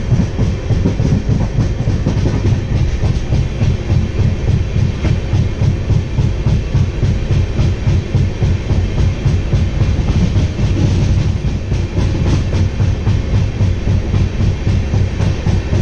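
Passenger train running along the track, heard from inside the coach at an open door: a loud, steady rumble of wheels on the rails with dense rattling clicks.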